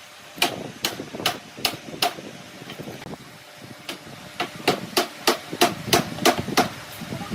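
A hammer striking wood in two runs of sharp blows: five evenly spaced strikes, a pause of about two seconds, then about eight quicker ones.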